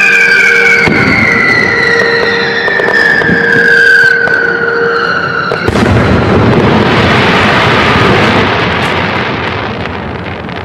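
Fireworks: a long whistle slowly falling in pitch as a shell climbs, then about five and a half seconds in the shell bursts with a sharp bang, followed by several seconds of crackling that gradually fades.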